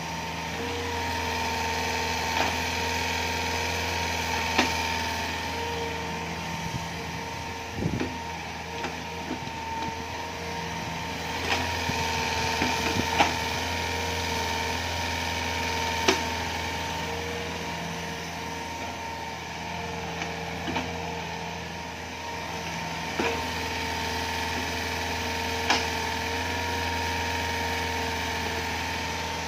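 Hitachi Zaxis 48U mini excavator's Yanmar 4TNV88 four-cylinder diesel running steadily, with a whine over it that grows louder in spells as the arm and bucket are worked, its hydraulics being tested after a control valve repair. Several sharp knocks are scattered through it.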